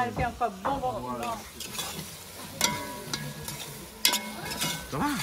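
Onion-and-tomato sauce base frying with a sizzle in an aluminium pot on a gas burner while a spoon stirs it, with a few sharp clicks as the spoon knocks against the pot.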